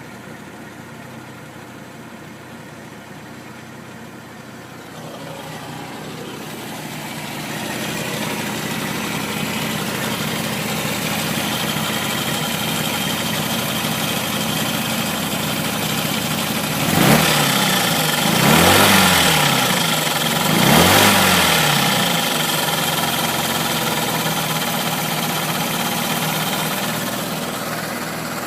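Toyota AW11 MR2's 4A-GE twin-cam four-cylinder engine idling with a ticking, which the owner takes for an abnormal sound. It is revved briefly three times a little past the middle, then settles back to idle.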